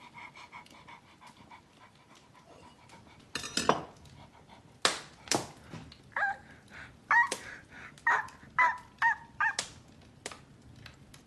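Dog-like noises: after a few quiet seconds come some sharp sniffing huffs, then a run of about six short, high yaps and barks.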